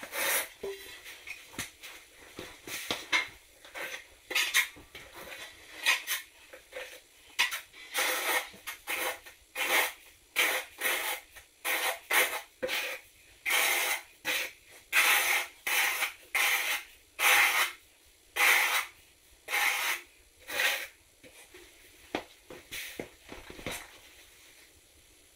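Steel notched trowel scraping and combing thinset mortar across the subfloor: a run of rasping strokes, one to two a second, that stops about four seconds before the end.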